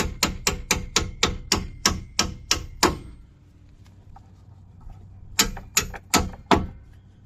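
Hammer blows on a rusty steel bolt being driven through the strut mount. A fast, even run of sharp metallic strikes, about three a second, stops about three seconds in. After a pause, four more strikes follow.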